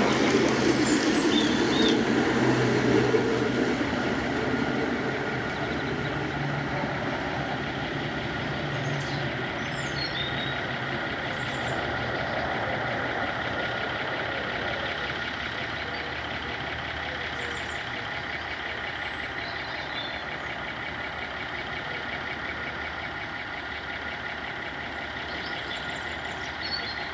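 Diesel train engine running, loudest in the first few seconds and then settling into a steady drone with a high whine. Birds chirp briefly a few times.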